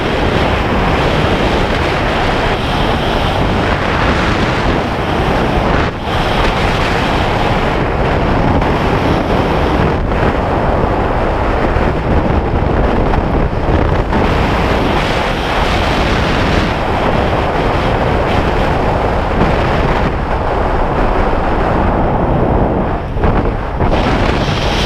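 Steady rush of wind buffeting the camera's microphone as a skydiver flies under an open parachute canopy, dipping briefly about six seconds in and again near the end.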